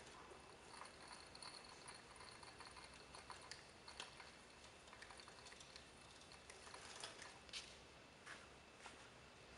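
Near silence with a few faint, scattered clicks and ticks from the table handwheel of a Bridgeport vertical milling machine being turned by hand.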